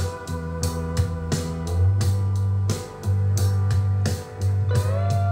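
Background music with a held bass line and a steady beat, with a note sliding up near the end.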